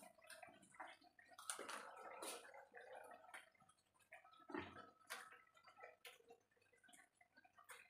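Faint sizzling and crackling of potato and cauliflower cooking in an aluminium kadhai, with scattered small pops.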